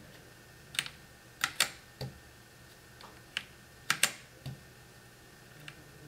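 Key presses on a Womier K66 mechanical keyboard with Gateron switches: about eight separate, unevenly spaced keystrokes, some in quick pairs.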